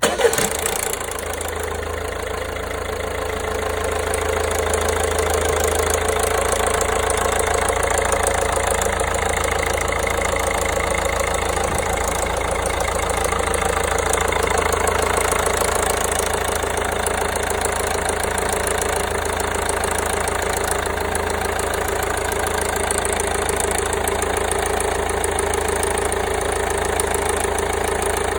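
1.5 HDI diesel engine running at a steady idle. It comes in abruptly at the start with a brief louder moment, then holds an even idle.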